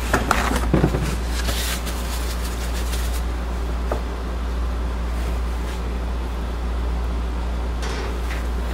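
Steady low hum that runs throughout, with a cluster of light clicks and taps in the first three seconds and a few fainter ones later on.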